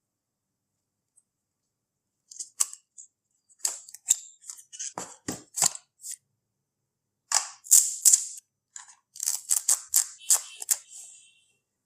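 Tablet box and packaging being handled during unboxing: irregular sharp clicks, taps and short crinkling rustles, starting a couple of seconds in and coming thickest near the end.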